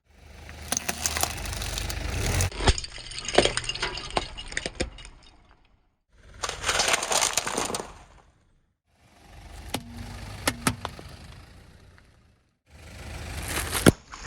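A car tyre rolling over and crushing objects, with crunching and sharp cracks as they break. It comes in about five short bursts, each a second or two long, separated by brief gaps of silence.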